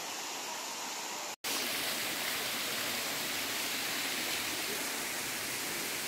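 Steady rush of a waterfall pouring onto rocks, with a split-second dropout about a second and a half in, after which the rushing water carries on a little louder.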